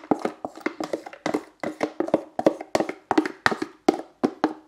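A plastic food tub being tapped and shaken, about five quick taps a second, as chopped leeks are knocked out of it into a slow cooker pot.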